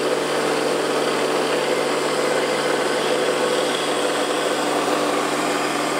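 Small cue-repair lathe running steadily, its motor humming with an even hiss, as 240-grit silicon carbide sandpaper is held against the spinning cue tip to turn it down.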